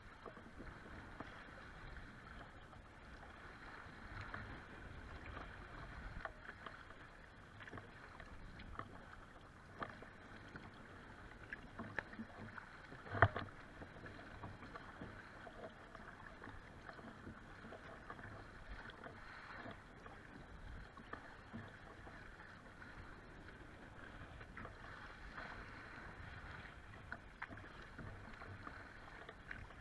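Kayak being paddled through choppy lake water: a steady wash of water with splashes from the paddle strokes every second or two. A sharp knock sounds about 13 seconds in.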